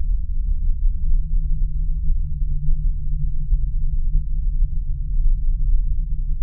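A steady, deep droning rumble with a low hum that swells a little in the middle and then settles.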